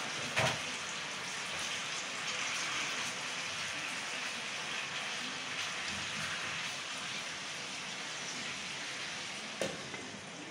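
Raw chicken pieces sizzling steadily in hot oil in a steel pot, a rain-like crackle as the meat's water fries off. A couple of short knocks against the pot, one just after the start and one near the end.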